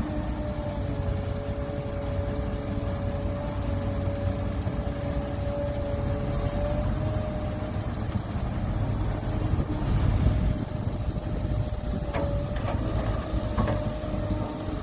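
Heavy diesel earthmoving machinery running steadily, with a low rumble and a steady high whine over it. A few sharp metallic clanks come near the end.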